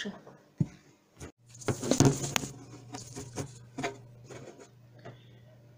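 Rustling of a jacket's synthetic fabric and knocks from hands handling the camera close to the microphone, loudest about two seconds in. A low steady hum starts about a second and a half in.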